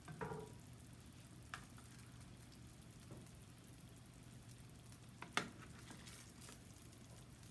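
Quiet room tone: a faint steady hum and hiss, with a few light clicks, one about a second and a half in and a sharper one about five seconds in.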